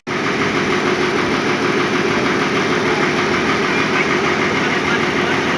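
Bulldozer's diesel engine running steadily with a fast, even chugging.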